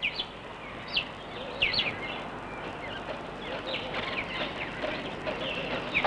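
Birds chirping: many short, high calls, each a quick sweep in pitch, come in scattered runs, busiest in the second half, over a steady background hiss.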